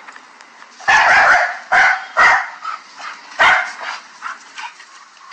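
A dog barking: four loud barks at uneven intervals, the first one longer, and a fainter one near the end.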